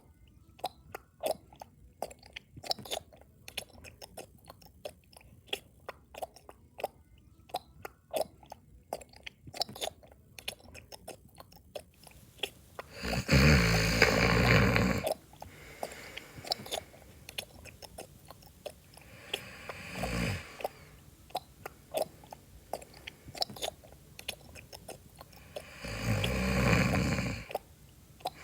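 Loud close-up chewing, a run of quick wet clicks and smacks, with three snores breaking in: a long loud one just before the middle, a shorter one a few seconds later, and another near the end.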